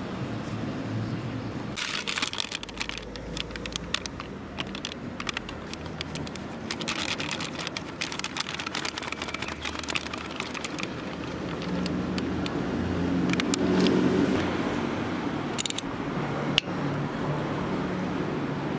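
Irregular clicks and rustling of hand-tool work under a motorcycle oil pan: the drain bolt being refitted with a new aluminium washer and snugged lightly with a hex bit on a wrench. A low hum swells and fades about two-thirds of the way through.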